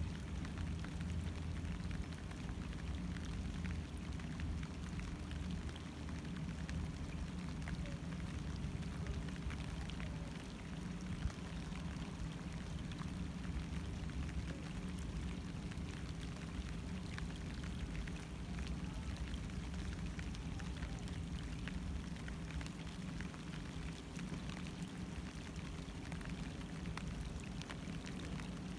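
Rain falling on the water and the boat: a steady hiss of rainfall dotted with many small drop hits, over a steady low hum.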